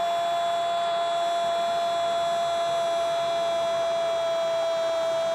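A Portuguese-language football commentator's goal cry, one unbroken high note held steady for the whole span.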